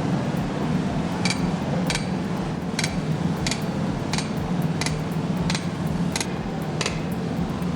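A hammer striking metal in a steady rhythm: nine ringing blows, about one every 0.7 seconds, starting about a second in, over a steady low hum.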